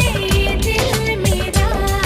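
Bollywood-style film song: a voice singing a melody over a steady drum beat.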